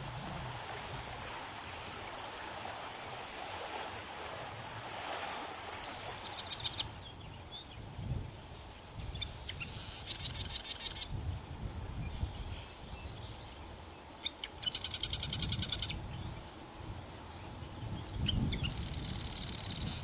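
Marsh wren singing: four songs a few seconds apart, each a few short notes followed by a rapid, buzzy rattling trill about a second long. A low rumble runs underneath.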